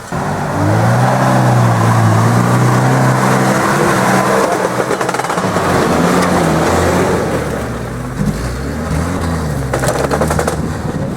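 Off-road 4x4's engine revving up about half a second in and held at high revs for a few seconds, then easing back to a lower, steady run for the rest.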